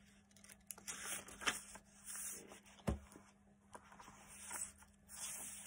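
Paper pages of a handmade journal rustling and sliding against each other as they are turned by hand, in several short bursts, with a single thump about three seconds in.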